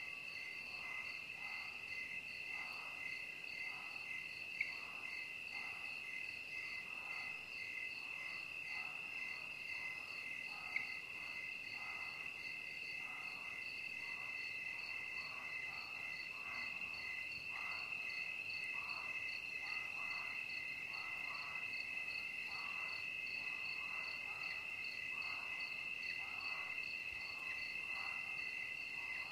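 Evening chorus of crickets trilling steadily and high. Beneath it is a lower chorus of calls pulsing about one and a half times a second. Two brief clicks come in the first half.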